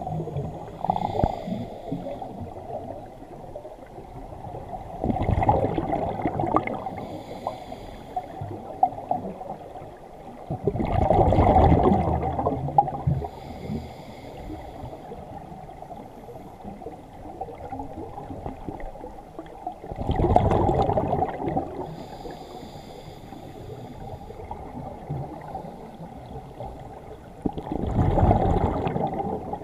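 Scuba diver breathing through a regulator underwater: four bubbly exhalations, about every seven to eight seconds, with quieter breathing between.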